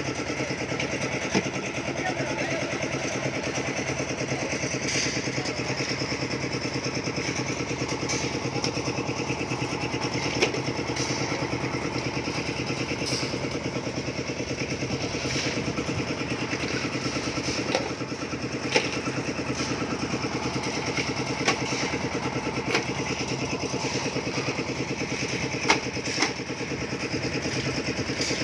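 An engine running steadily at an even speed, with a handful of sharp clicks and knocks at scattered moments.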